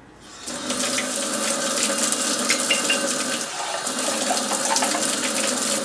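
Sink faucet running water into a glass jar: the stream comes on just after the start and splashes steadily, changes briefly about three and a half seconds in, and is shut off near the end.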